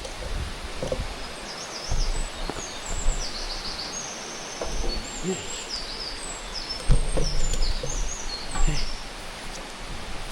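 A songbird singing a fast string of high chirps and trills, over uneven low rumbling with a few knocks.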